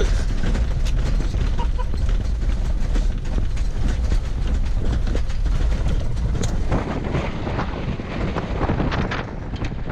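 Ford Bronco driving on a rough dirt trail, heard from inside the cabin: a steady low rumble of tyres and suspension with constant rattling and clicks. About seven seconds in the rumble thins and wind buffeting on the microphone takes over.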